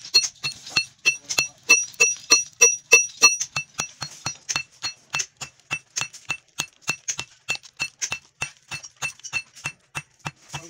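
Steady hammer blows, about three a second, on the copper windings of a small electric motor stator lying on a steel plate, knocking the copper out. For the first few seconds each blow rings with a metallic clink; after that the blows are duller.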